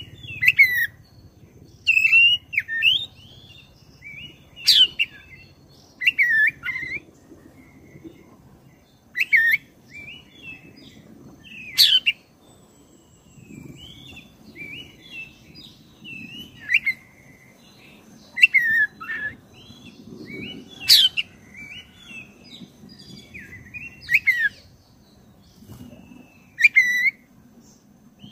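Black-breasted Oriental magpie-robin (kacer dada hitam) singing: short bursts of varied whistles and chirps a second or two apart, some with sharp rising notes.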